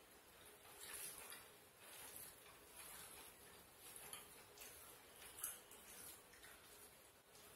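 Faint, soft ticks and rustles of bare hands tearing flaky parotta on banana leaves while eating, with one slightly louder tick about five and a half seconds in.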